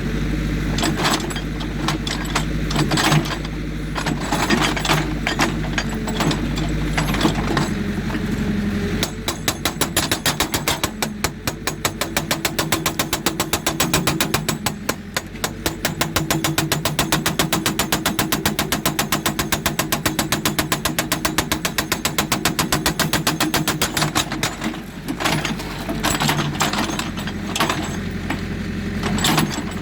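Hydraulic breaker on a JCB 3D backhoe loader hammering rock in a long, rapid, even run of blows, over the steady run of the machine's diesel engine. Before and after that run, the engine runs with scattered, irregular knocks.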